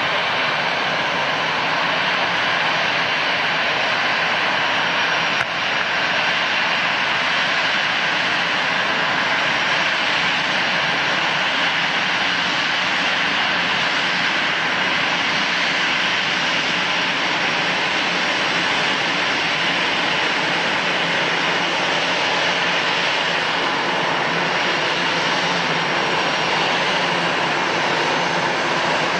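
Jet airliner engines running with a steady, even rush that neither builds nor fades, with a brief click about five seconds in.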